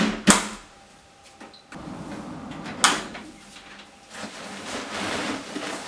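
A front-loading tumble dryer's door being opened: two sharp clicks right at the start and another about three seconds in. A soft rustling follows as the down duvet is handled in the drum.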